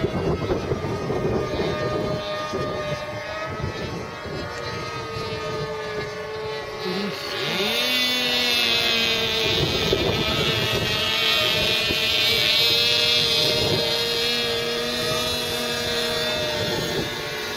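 Several radio-controlled model airplanes' motors running in flight, heard as steady buzzing tones. About seven seconds in, one rises sharply in pitch and a loud high whine joins and carries on to the end.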